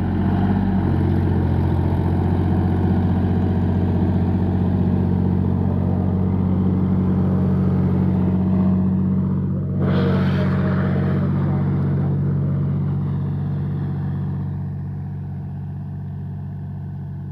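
John Deere 5204 tractor's three-cylinder diesel engine running steadily under load while pulling a disc harrow through the soil. A brief scraping rush comes about ten seconds in as the harrow passes close, and the engine fades as the tractor moves away near the end.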